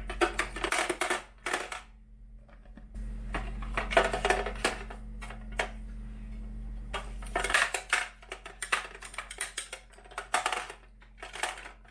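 Makeup brushes clicking and rattling against a clear acrylic brush holder as they are slid in and sorted by hand, in four or so spells of quick clatter.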